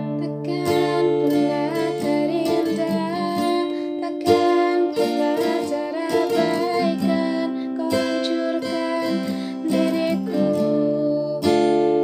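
A woman singing to strummed acoustic guitar.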